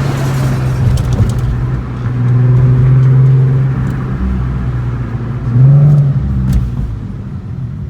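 Volkswagen Golf R32's 3.2-litre VR6 engine and exhaust pulling at low revs while driving, getting louder for a second or so around two to three seconds in, with a short rev that rises in pitch about five and a half seconds in.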